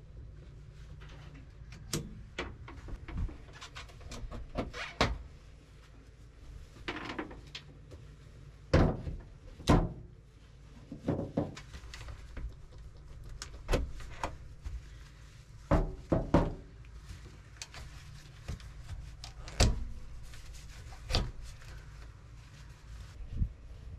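Knocks and clicks of trailer electrical plugs and air-line couplings being unplugged and handled at the truck's connection panel: a string of separate sharp clunks, a few of them loud, over a steady low hum.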